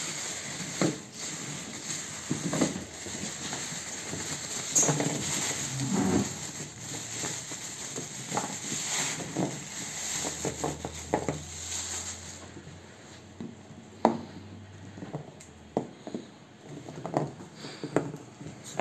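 A clear plastic bag crinkling and rustling, and taped packets being handled by gloved hands, with scattered knocks on a tabletop. A low hum comes in for a few seconds midway.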